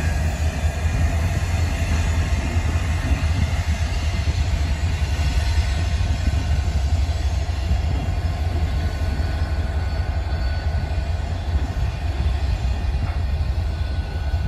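Union Pacific freight train of EMD SD40 diesel locomotives and covered hopper cars rolling past and drawing away, a steady low rumble of engines and wheels on the rails.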